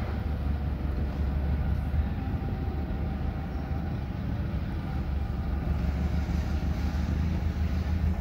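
Forklift engine running steadily: a constant low hum with faint steady tones above it.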